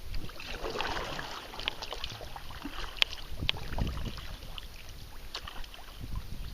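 Kayak paddling on a river: water splashing and dripping from the paddle strokes, with a few sharp clicks and knocks. Wind rumbles on the microphone.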